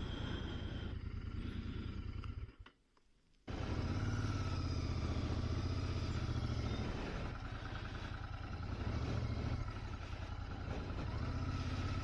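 Royal Enfield Interceptor 650's parallel-twin engine idling, then, after a gap of about a second with almost no sound, running again as the motorcycle pulls away and rides on.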